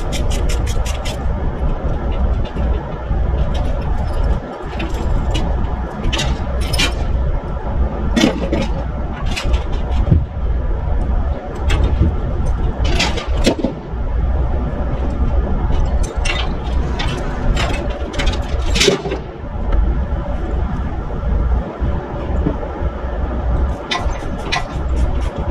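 Heavy diesel machinery running steadily with a deep rumble, with scattered metallic clanks and scrapes coming and going.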